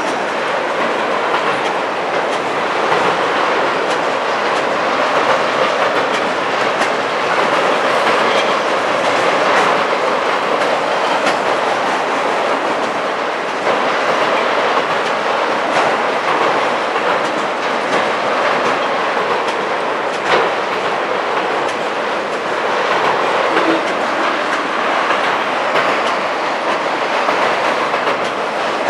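Autorack freight cars rolling past: steady rolling noise of steel wheels on rail, with scattered light clicks and rattling from the passing cars.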